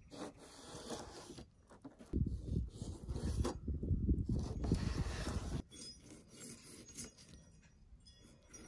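Fillet knife slicing and scraping through raw fish fillets on a rubber cleaning mat, a rasping, rubbing sound in short strokes. A low rumble runs underneath from about two seconds in until about five and a half seconds, and is the loudest part.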